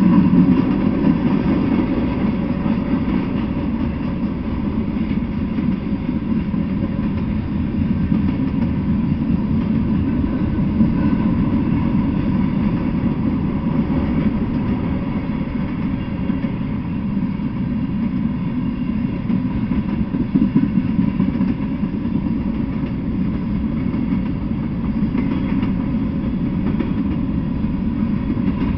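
Freight train cars rolling past: a steady rumble of steel wheels on the rails from a string of tank cars, a flatcar, a covered hopper and gondolas.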